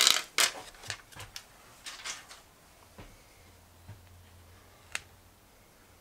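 Clear plastic backing being peeled off adhesive-backed Velcro: a short crinkly rustle right at the start. Then faint plastic rustles and handling ticks, and one sharp click about five seconds in.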